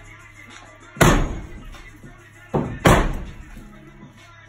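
Sledgehammer blows against a brick chimney: two heavy strikes about two seconds apart, each ringing out briefly, with a lighter knock just before the second.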